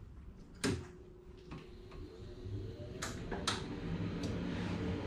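CNC vacuum table's vacuum pump switched on with a click, then spinning up, its steady hum and rush growing louder. Two sharp clicks about three seconds in.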